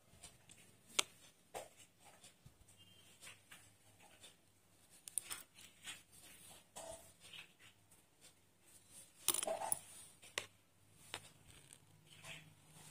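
Needle and embroidery thread drawn through cloth stretched taut in an embroidery hoop: faint, irregular scratchy rasps and ticks, with a louder scrape about nine seconds in.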